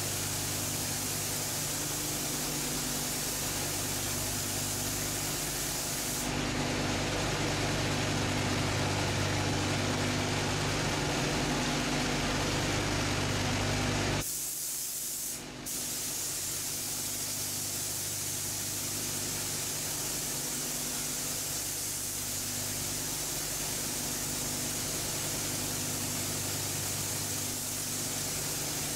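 Steady hiss of rushing air with a low motor hum from paint-booth spraying: a compressed-air paint spray gun in use and the booth's air running. The sound changes abruptly about six and fourteen seconds in.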